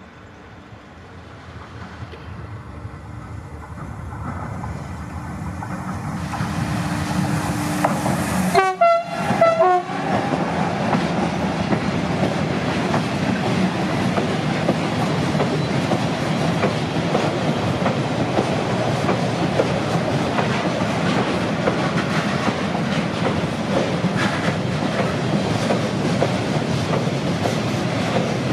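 Renfe Mercancías class 253 Bombardier TRAXX electric locomotive approaching with a car-carrier freight train, growing steadily louder, and sounding its horn briefly about nine seconds in. After that comes the steady rumble and wheel clatter of the loaded car-transporter wagons rolling past.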